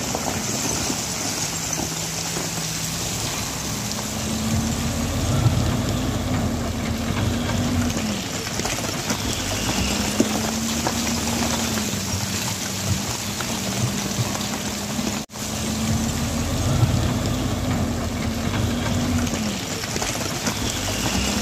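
Backhoe loader's diesel engine working, revving up and dropping back every five seconds or so, over a steady hiss of rain. The sound cuts out for an instant about fifteen seconds in.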